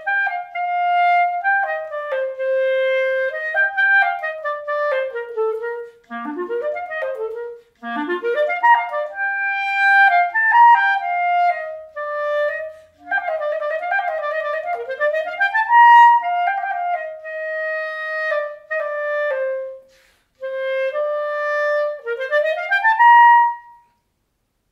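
Solo German-system Wurlitzer clarinet fitted with a Paulus & Schuler adjustable zoom barrel (Zoom-Birne), playing a melodic passage in phrases with short breath breaks and several quick upward runs. The last run ends on a high note near the end. The tone is bright and carrying, as the player hears it.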